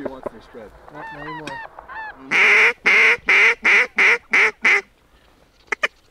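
Hunter blowing a goose call. A run of softer arched honks comes first, then seven loud, rapid honks in about two and a half seconds, starting a little over two seconds in, then two short clucks near the end.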